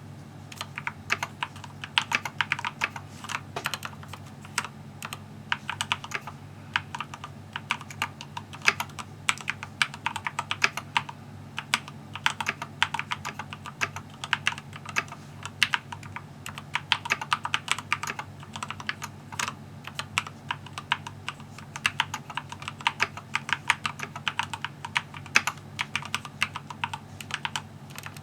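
Typing on a Keychron K4 v2 mechanical keyboard: fast, irregular key clicks in runs with brief pauses, as a sound test of the keyboard.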